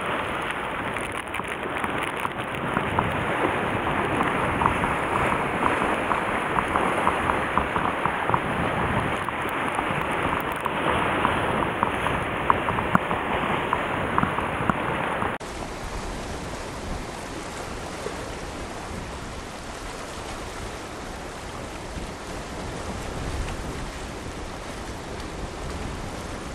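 Surf washing against shore rocks, with a plastic packet crinkling in hand as many sharp crackles over the first fifteen seconds or so. About fifteen seconds in the sound changes abruptly to a steadier wash of waves and wind.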